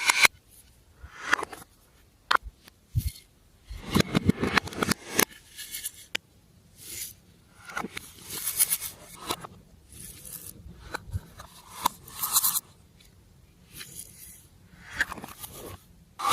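Glossy slime being worked and mixed, making irregular sticky squelches, crackles and scrapes with sharp clicks. The densest crackling comes about four to five seconds in.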